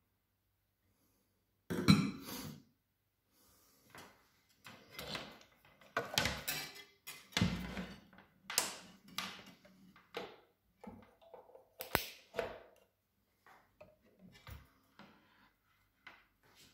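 Plastic and stainless-steel attachments of a SilverCrest hand blender being handled, set down on a counter and fitted together. There is a run of irregular knocks and clicks, the loudest about two seconds in, with a sharp click near the middle.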